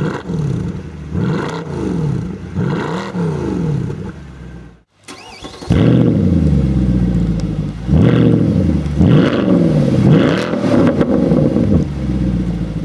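Mercedes-Benz C63 AMG W204's 6.2-litre V8 revved in repeated blips, its pitch rising and falling each time. First come three revs through the stock exhaust. After a brief drop-out about five seconds in, the revs are clearly louder through a REMUS stainless-steel cat-back sport exhaust with carbon tailpipes.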